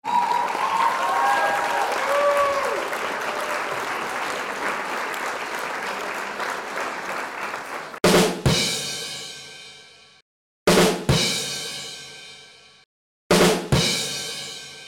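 Intro music: a steady rushing wash with a few short gliding tones, then three big double drum strikes with crashing cymbals about two and a half seconds apart, each left to ring out and fade.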